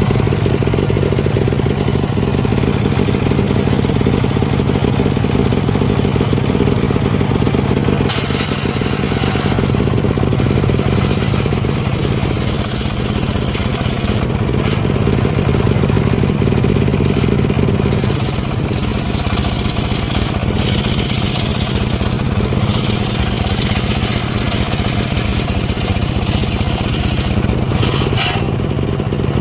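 Engine-driven wood saw running steadily under constant throttle. From about eight seconds in, the blade cuts into timber again and again, adding a rasping, hissing layer in stretches.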